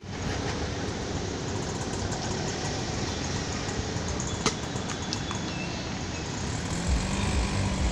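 Outdoor city ambience: a steady wash of road traffic noise, with a sharp click about halfway through and a low engine hum coming in near the end.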